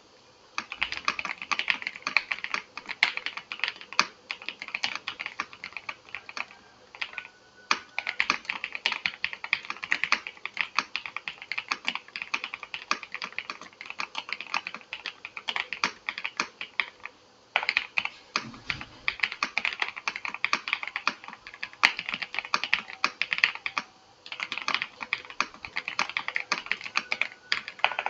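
VGN V87 Pro mechanical keyboard with Kailh hot-swap sockets being typed on quickly: dense runs of key clacks, broken by short pauses about 7, 17 and 24 seconds in.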